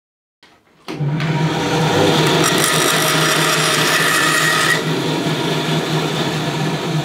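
Bandsaw running and cutting through a thin strip of wood, starting suddenly about a second in: a steady motor hum under a bright cutting hiss that eases off about five seconds in as the saw runs on.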